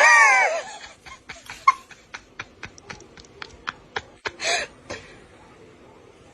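A short cry from a person, falling in pitch, followed by a run of irregular sharp clicks and a brief breathy hiss.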